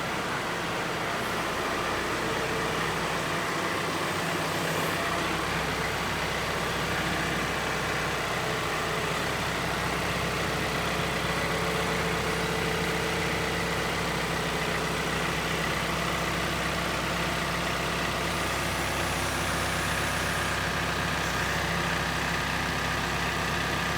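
Sawmill engine running steadily at a constant speed.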